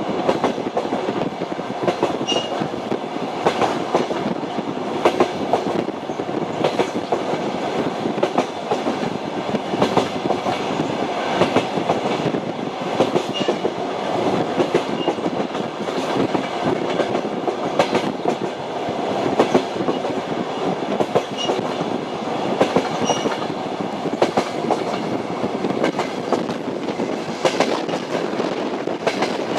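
Train wheels clattering over the rail joints against a steady running rumble, with frequent short knocks.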